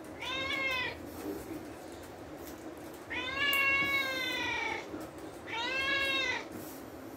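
A kitten meowing three times: a short meow, a longer one about three seconds in that drops in pitch at its end, and another short meow about five and a half seconds in.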